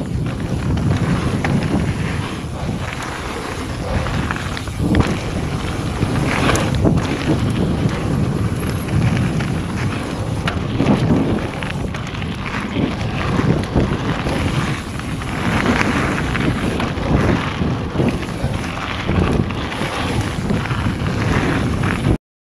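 Mountain bike riding fast down a gravel and dirt trail: wind buffets the action camera's microphone over the rumble of tyres on loose gravel, with scattered knocks and rattles from the bike over bumps. It cuts off abruptly near the end.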